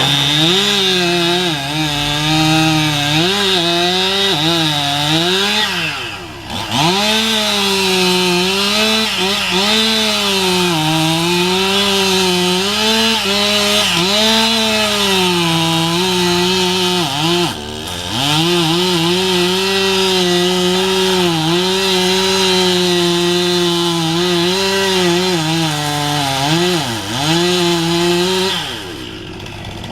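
Gas chainsaw cutting wood, its engine pitch wavering and dipping as the chain loads up in the cut. The throttle drops off briefly about six seconds in, again around seventeen seconds, and near the end, then revs back up.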